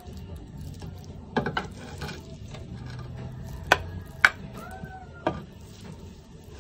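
A plastic serving spoon scooping cooked rice from a clay pot onto a clay plate: soft scraping with scattered clicks, and two sharper taps of the spoon against the plate near the middle.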